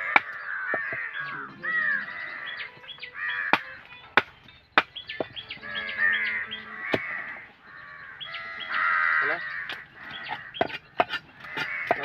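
Large knife chopping fish on a wooden chopping block: sharp knocks at irregular intervals, over near-constant harsh animal calls.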